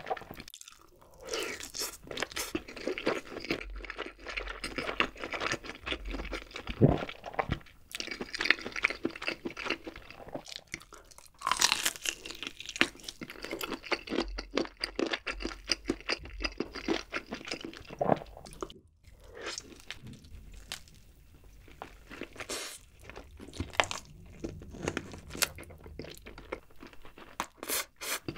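Close-miked eating of a sauce-glazed grilled whole chicken leg: biting and tearing meat off the bone and chewing with the mouth open. There are many irregular sharp crunching clicks, broken by a few short pauses.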